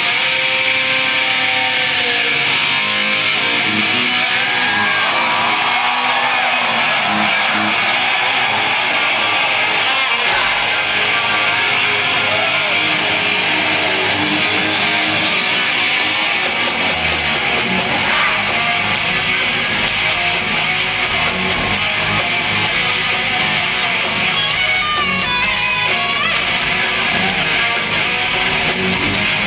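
Loud live rock band heard from the audience: an amplified electric guitar playing through stage amps, with bass and drums coming in hard a little past halfway through.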